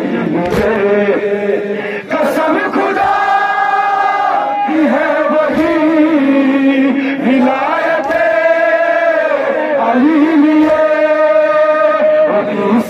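Men chanting a nowha, a Shia Muharram lament, in long held phrases of a couple of seconds each: a lead voice on a microphone with the crowd of mourners chanting along.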